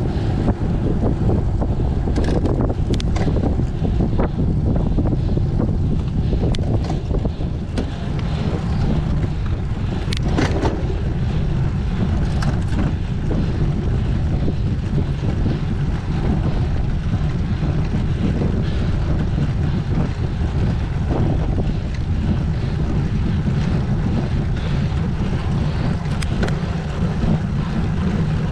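Wind rumbling over the microphone of a camera mounted on a moving road bike, with a steady hum from tyres on asphalt. A few short clicks come through.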